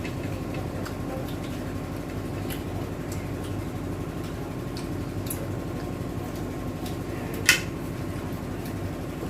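Steady low mechanical hum, with faint scattered clicks and one sharp click about seven and a half seconds in.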